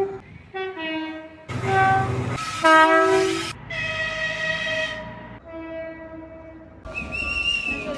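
Several different locomotive horns sounding one after another, spliced together with abrupt cuts. Each is a chord of steady pitches lasting about one to two seconds, and the loudest comes about three seconds in.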